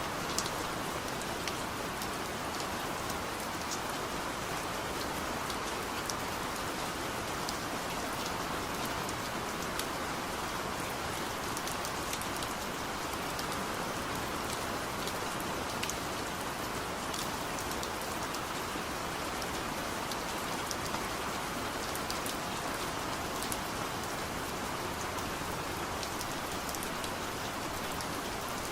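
Steady rainfall: an even hiss of rain with scattered sharp drop ticks.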